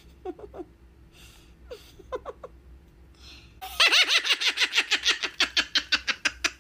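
A man laughing: a few faint chuckles, then from about halfway through loud, rapid laughter.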